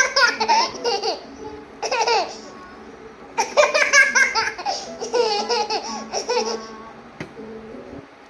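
A toddler laughing in four bursts, each about a second long, with short pauses between them.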